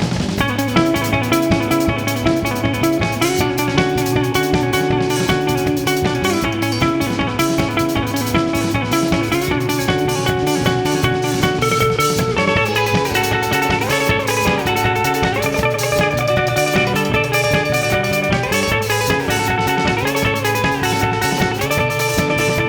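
Rock band playing an instrumental passage: guitars over bass and drum kit, with a guitar line bending its notes up and down from about halfway.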